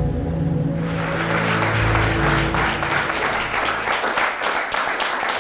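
An audience applauds, starting about a second in, over the tail of a short intro music sting whose low notes fade out about three seconds in.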